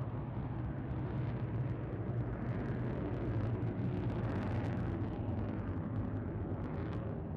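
Fighter jet engine noise from a jet flying overhead: a steady, deep rumble with a crackly top that grows strongest about four seconds in.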